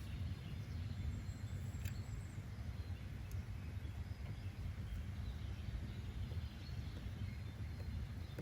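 Steady low-rumbling outdoor nature ambience with faint high chirps scattered through it.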